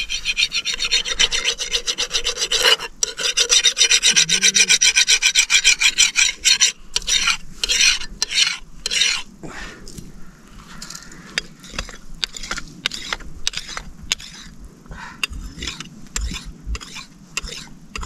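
A metal blade being sharpened by hand on a rough stone: fast back-and-forth rasping strokes, thinning to separate strokes about seven seconds in, then fainter, irregular scrapes for the rest.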